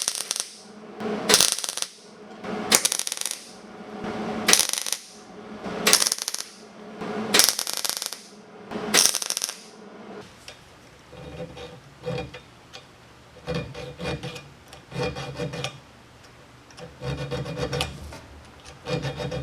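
Hand filing or scraping strokes on metal, slow and even: seven long rasping strokes about a second and a half apart. About ten seconds in they give way to shorter, quicker, quieter rubbing strokes that have a squeaky ring to them.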